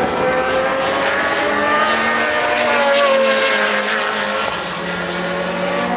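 Race cars driving past on the circuit, several engines running at speed at once, their tones shifting slowly in pitch as the cars pass; a little louder about halfway through.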